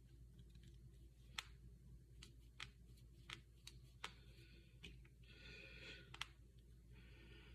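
Finger joints and knuckles cracking: about eight sharp, separate pops over several seconds, the loudest one early on and one near the end. A soft breath is heard between the last cracks.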